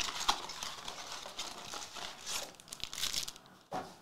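Foil trading-card pack wrappers crinkling irregularly as a stack of packs is handled and shuffled in the hands.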